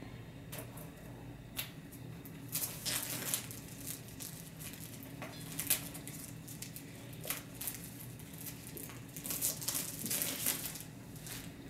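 Plastic wrapping on a small gift box crinkling and tearing as hands peel it open, in short irregular crackles with a few louder clusters, over a faint steady room hum.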